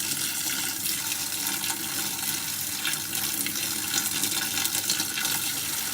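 Hot water poured steadily from a jug into the washing machine, splashing and draining, to flush loosened black gunk out of the small holes.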